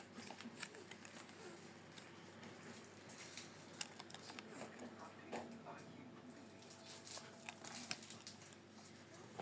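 Faint, scattered rustles and light clicks of clothing being handled.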